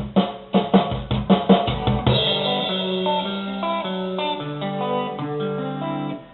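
Instrumental band music between sung lines: drum kit strikes in an even beat for about the first two seconds, then a guitar plays a melodic line of held notes stepping up and down.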